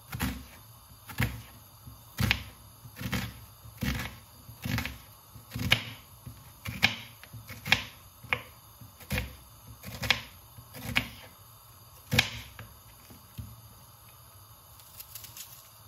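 Kitchen knife slicing an onion on a plastic cutting board: a sharp knock of the blade on the board about once a second. The strokes stop about twelve seconds in, followed by a few faint taps near the end.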